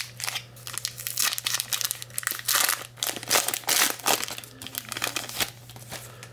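Foil wrapper of a 2014 Bowman Jumbo card pack crinkling and tearing as it is ripped open, in irregular bursts of rustling that stop near the end.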